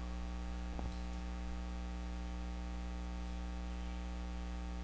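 Steady electrical mains hum with a light static hiss, with one faint click a little under a second in.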